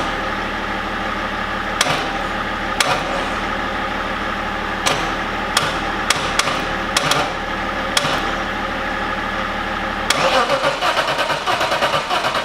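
Swapped-in BMW M52TU 2.8 straight-six in an E36 Compact being turned over, a steady drone with a few sharp clicks. The EWS immobiliser is suspected of keeping it from starting.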